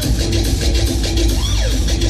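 Loud music played over a large DJ sound system, with heavy bass and a repeated swooping tone that rises and falls.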